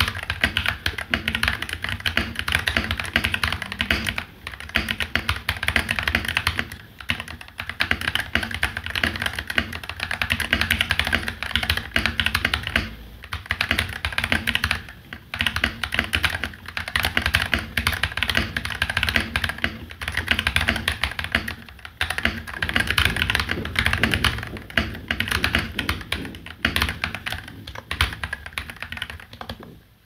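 Fast typing on a custom 68-key mechanical keyboard with KTT Kang White V3 linear switches on a steel plate in a plastic case, capped with thick PBT Cherry-profile keycaps: dense runs of keystroke clacks with short pauses between the bursts.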